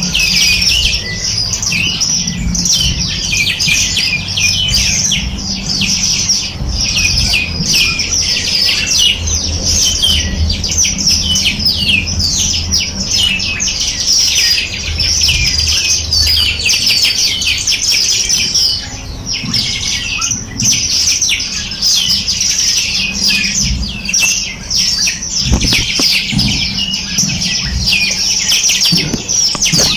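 A flock of small songbirds chirping and chattering densely and without pause, many quick overlapping calls at once, over a low rumble.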